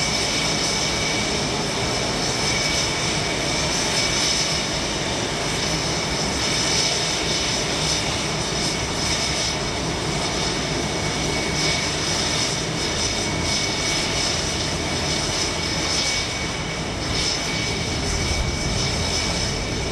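Jet engines of a line of F/A-18 Hornets running at idle on the ramp: a steady high whine of several tones over a continuous rushing noise.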